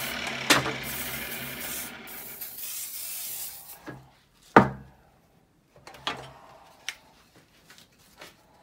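WD-40 aerosol can spraying in a steady hiss onto a rusty crosscut saw blade, stopping about four seconds in. A sharp knock follows, the loudest sound, then a few lighter knocks.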